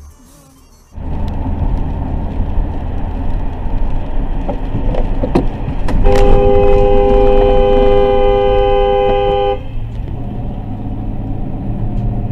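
Car horn held for about three and a half seconds, a steady two-note blare, over the continuous road and engine rumble of a moving car. The rumble starts suddenly about a second in.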